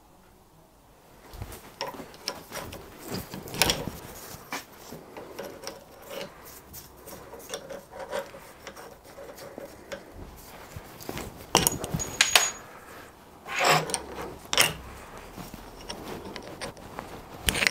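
An adjustable spanner working a threaded part of an old steam waggon valve held in a bench vice: uneven metal scraping and rubbing with scattered clinks, and several sharper knocks through the middle and near the end.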